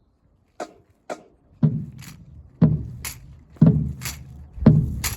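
A drum beats a slow, steady marching time. A deep ringing bass-drum stroke falls about once a second, with a sharp high click half a second after each, and two light taps lead in.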